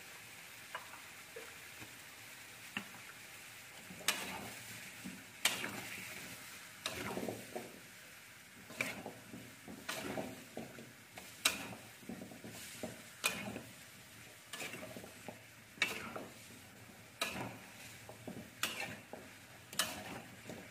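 Metal spatula stirring chicken, potato and carrot in a metal wok, scraping and clacking against the pan roughly once a second from about four seconds in, over a steady sizzle of frying.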